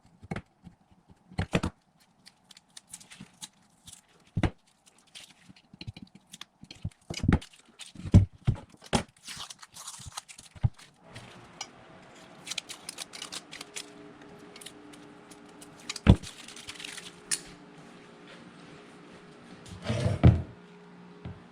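Intermittent metallic clinks, taps and knocks of small parts handled and fitted while a HMMWV parking brake assembly is put back together by hand, with a louder clatter near the end. About eleven seconds in, a steady hum with several tones starts underneath.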